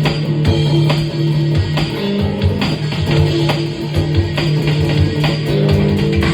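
Band playing an improvised piece: guitar and bass holding sustained notes over a steady beat of drum hits.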